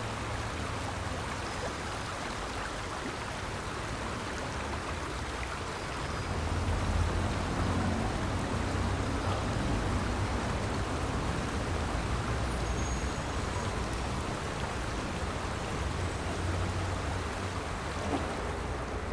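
Steady rush of falling and splashing water, with a low rumble underneath that swells about six seconds in.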